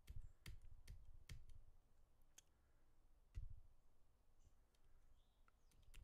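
Faint scattered clicks, several about half a second apart near the start, with a soft low thump about three and a half seconds in.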